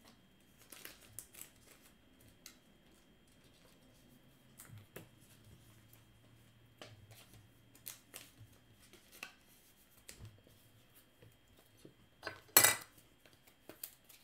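Baseball trading cards being handled and stacked by hand: scattered light clicks and taps of card edges, with one sharper snap about twelve and a half seconds in.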